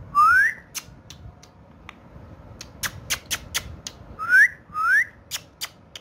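Indian ringneck parrot giving short rising whistles: one right at the start, then two close together about four seconds in. Sharp scattered clicks come in between.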